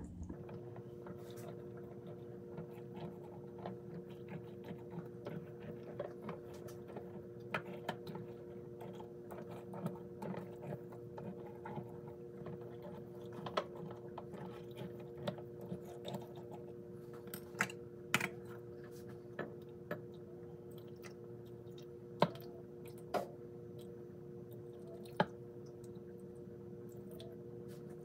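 A chopstick tapping and clicking against glass canning jars of beans as it is worked down to release trapped air bubbles: a scatter of light ticks with a few sharper knocks in the second half. A steady hum runs underneath.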